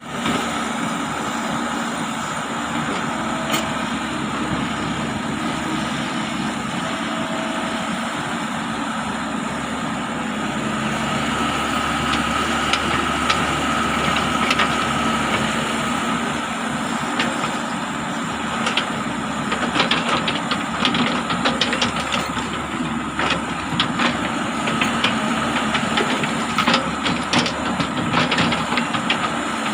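Excavator's diesel engine running steadily, with a constant whine over the drone. From about two-thirds of the way through, many sharp clicks and knocks come over it while it digs.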